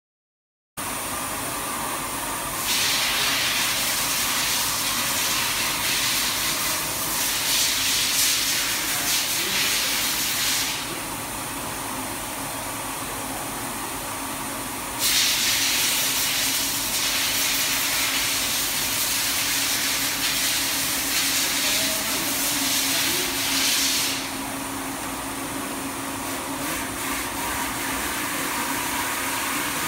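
Wet-operation deburring machine with planetary disk brush heads running: a steady hum under a strong hiss that starts abruptly under a second in and swells louder twice for several seconds at a time.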